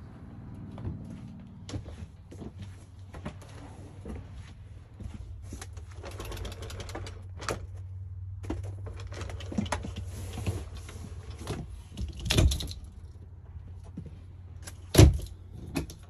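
Scattered clicks and rustling over a steady low hum, with a thump about twelve seconds in and a sharper, louder knock near the end.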